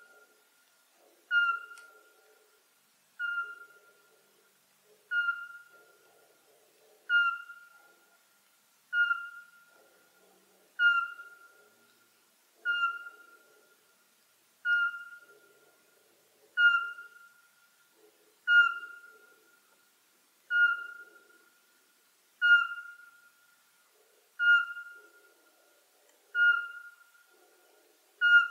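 Eurasian pygmy owl giving its territorial song: a long, monotonous series of single whistled notes on one pitch, about one every two seconds, each note trailing off briefly.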